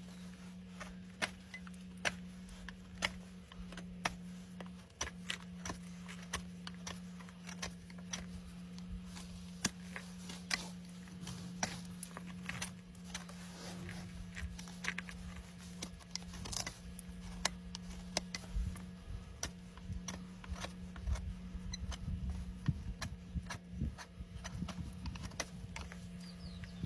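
Horse hoof being trimmed: irregular sharp clicks and cracks of trimming tools on hoof horn, over a steady low hum.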